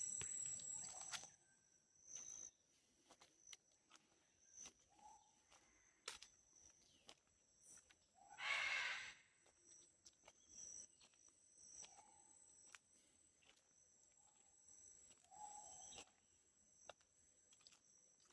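Amazon rainforest ambience: a steady high-pitched insect chorus, with a short low note from an animal repeating every few seconds. Scattered clicks and a louder rustle about eight seconds in.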